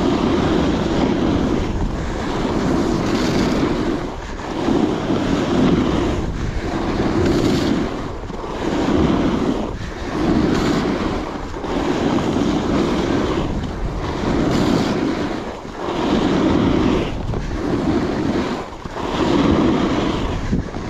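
Coiler Nirvana alpine snowboard carving groomed snow in linked turns. The edge hiss swells and drops about once every two seconds as the board goes from edge to edge, with wind buffeting the microphone throughout.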